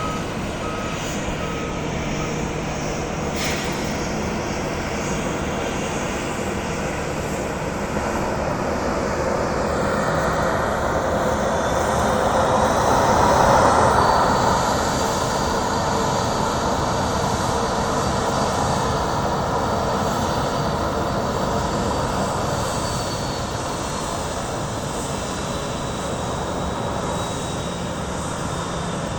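Boeing 737-800's CFM56 jet engines running, a steady roar that swells to a peak about halfway through and then eases. A thin high turbine whine rises and holds through the middle.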